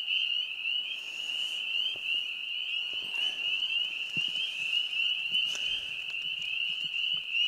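A dense chorus of frogs calling, a steady high-pitched mass of short overlapping calls.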